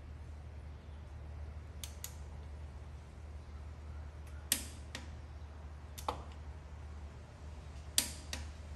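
A torque wrench and its ratchet head clicking as a belt tensioner bolt is tightened to 43 foot-pounds. About seven short, sharp metallic clicks come at uneven intervals, the loudest about four and a half and eight seconds in, over a low steady hum.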